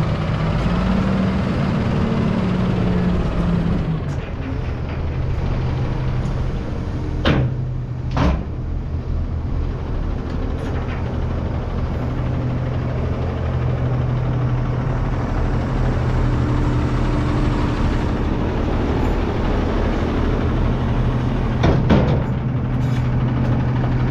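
Dump truck's diesel engine running steadily, its speed dropping to a lower idle about four seconds in. Three short sharp sounds stand out over it: two about seven and eight seconds in, and one near the end.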